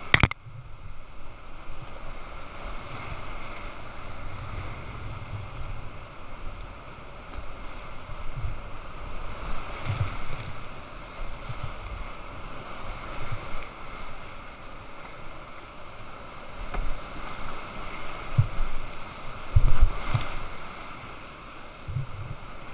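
Whitewater rapids rushing and churning around a kayak, heard from a head-mounted camera, with irregular low thumps of splashing water and wind buffeting the microphone, the heaviest about twenty seconds in.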